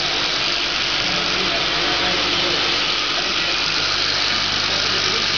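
Automatic rotary filling and capping machine for small bottles running at speed: a steady, even mechanical whir with a hiss on top.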